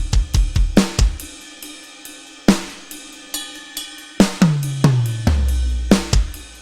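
Drum kit playing a fill: a quick run of snare, kick and hi-hat hits with cymbal crashes, another crash about two and a half seconds in, then a roll down the toms stepping from high to low, ending on a crash with the kick.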